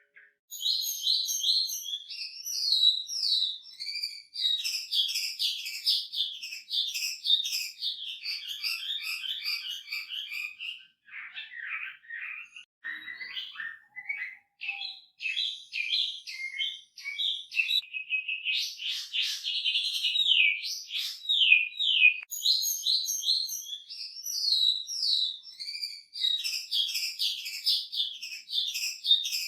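Chinese hwamei singing a long, unbroken song of rapid, repeated whistled phrases, varied throughout and rich in mimicked notes of other birds. About a third of the way in it drops to a lower, sparser passage before picking up again.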